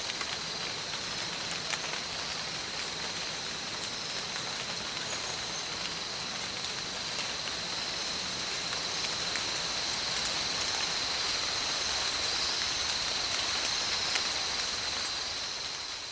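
Forest ambience: a steady hiss like rain, with a continuous high-pitched insect drone over it, beginning to fade out at the very end.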